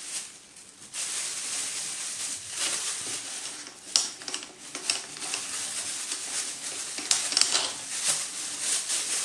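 Thin plastic bag rustling and crinkling as it is handled and pulled over a bowl, with a few sharp crackles partway through.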